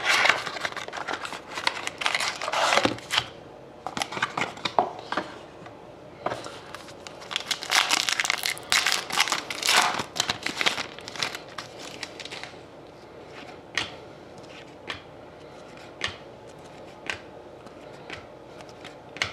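Plastic wrap crinkling and tearing as it is peeled off a stack of trading cards, with the cardboard inner box being handled, in rustling bursts for about the first twelve seconds. After that come sparse soft clicks and flicks as the cards are handled one by one.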